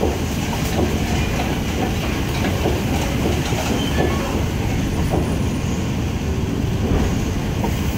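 Steel wheels of a State Railway of Thailand passenger coach rolling over yard track, rumbling steadily with irregular clicks and clacks as they cross rail joints and points, and faint brief wheel squeal.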